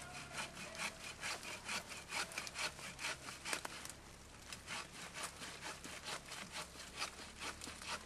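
Hand saw cutting through the trunk of a small conifer, felling a Christmas tree, in a steady back-and-forth of about three strokes a second with a short pause about halfway. It is faint, heard from a few metres off.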